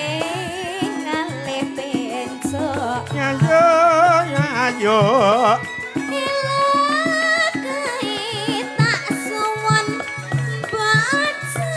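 A female Javanese singer sings a campursari song into a microphone, with long, wavering ornamented notes, over a live band keeping a steady drum beat.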